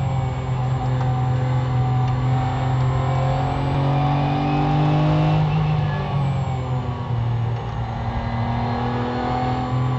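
Porsche 911 GT3's flat-six racing engine heard from inside the car, pulling at around 5,000 to 5,500 rpm with its pitch rising slowly. The revs drop about six seconds in as the car slows for a corner, then run steadily lower through the turn.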